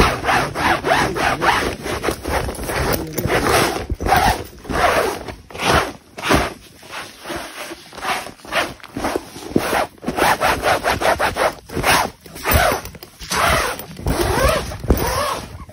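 A cloth rubbed and wiped across tent fabric, a run of irregular swishing strokes about one or two a second.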